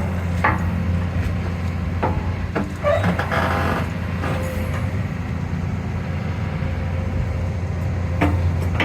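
Excavator's diesel engine running steadily under load, with several sharp knocks and clanks from the boom and bucket linkage. The owner takes the clanking for worn pins, worn bushings, or both.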